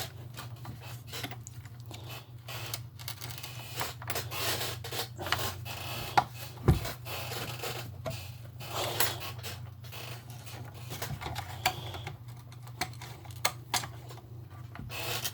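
Small plastic parts of a toy RC car being handled and pushed into place: scattered clicks, taps and rustles over a steady low hum.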